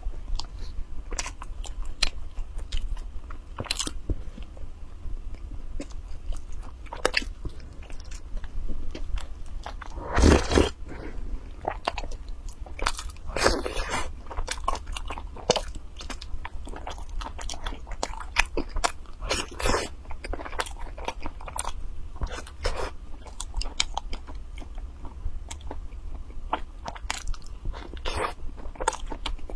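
Close-miked eating of soft white bread: steady chewing with many small wet mouth clicks, and a few louder, longer mouth sounds about ten, thirteen and twenty seconds in.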